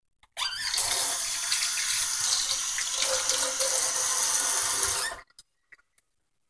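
Kitchen faucet running into a stainless steel sink: the water comes on just after the start, runs steadily for about five seconds, then is shut off abruptly.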